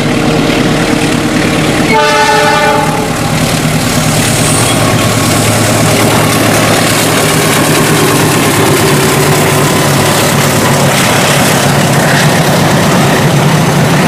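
KAI CC 206 diesel locomotive hauling a passenger train past at speed: the diesel engine running loud, a short horn blast about two seconds in, then the steady rumble and clatter of the carriages' wheels on the rails.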